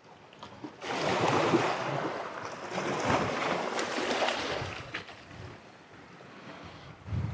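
Small waves washing over and around the rocks of a groyne: a hissing, splashing swell that builds about a second in, fades after about four seconds and rises again near the end.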